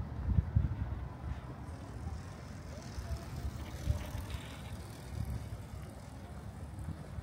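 Quiet street ambience with a vehicle going by, over irregular low thumps.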